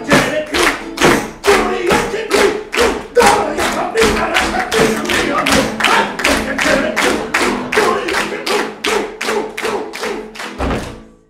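Lively dance music with a strong, even beat of about three hits a second over sustained melody notes, fading out at the end.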